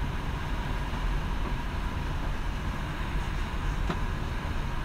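Steady low rumble and hiss of an airliner cabin, with one light click about four seconds in.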